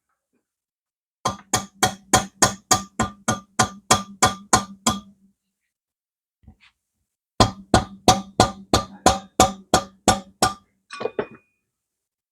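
Rapid hammer strikes on metal, about four a second, each ringing briefly, in two runs of a dozen or so blows with a short pause between, then a few softer knocks near the end.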